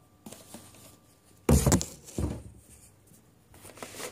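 Cardboard phone boxes being handled and put away: a sharp thud about a second and a half in, a smaller knock just after, and light rustling near the end.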